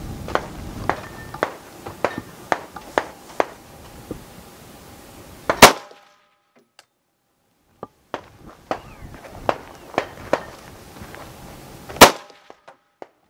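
Gunfire on a match stage: a string of sharp shots about every half second, then a much louder shot about five and a half seconds in, another string of shots, and a second very loud shot about twelve seconds in.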